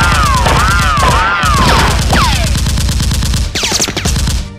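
Automatic gunfire sound effects: rapid, evenly spaced shots with bullets whizzing past as falling whistles. The firing thins out briefly near the end.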